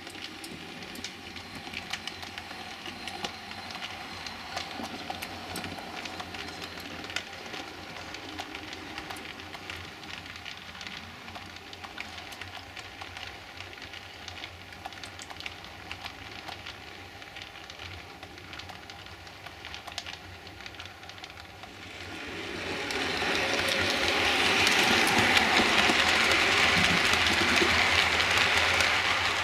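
Bachmann OO-gauge model of the Tornado steam locomotive pulling carriages along the track, its motor and wheels giving a steady running whirr with light clicking. It runs smoothly with no squeak on freshly cleaned and oiled wheels. It grows much louder about three-quarters of the way through as the train passes close by.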